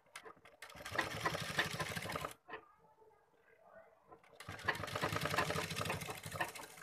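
Domestic sewing machine running in two stitching runs of about two seconds each, with a short pause between, as fabric is fed under the presser foot to sew a neckline seam.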